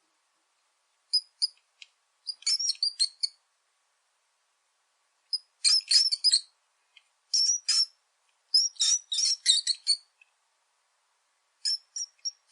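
Rat squeaking: short, high-pitched squeaks in quick clusters of several at a time, separated by pauses of a second or two.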